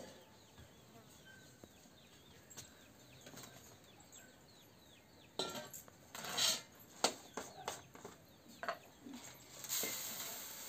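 Clicks and knocks of a plastic jar being set down on a bamboo winnowing tray and its lid taken off, then near the end a hissing rush of puffed rice (mudi) pouring out of the jar onto the tray. Faint high chirps in the first few seconds.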